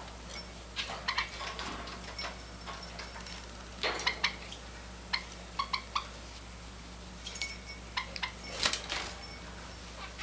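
Java sparrows in a wire cage: scattered sharp clicks and clinks, with a few brief high chip calls.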